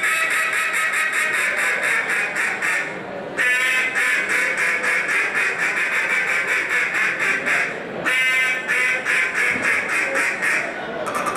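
Duck call blown in contest style, imitating a hen mallard: long runs of fast, evenly spaced short quacking notes. The calling dips briefly about three seconds in and again about eight seconds in, and each run starts again on a short, clearly pitched quack.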